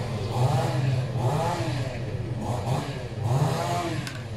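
A motor vehicle engine running over a steady low hum, its pitch rising and falling several times as it revs.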